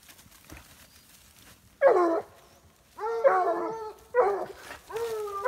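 Hunting hounds baying while trailing with noses down. There is one short cry about two seconds in, then three longer, drawn-out cries in quick succession, each starting high and settling slightly lower.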